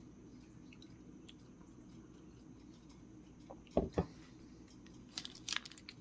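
Faint mouth sounds of chewing a peanut butter snack bar, with soft clicks near the end. About four seconds in, two dull knocks in quick succession, as of a coffee mug being set down on the table.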